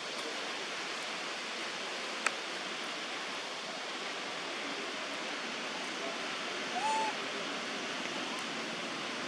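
Steady outdoor rushing hiss, with one sharp click about two seconds in and a brief squeak about seven seconds in.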